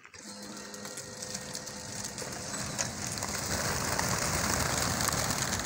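Wings of a large flock of racing pigeons clattering and flapping as the birds burst out of the transport truck's opened crates and take off. The sound builds steadily louder as more birds leave.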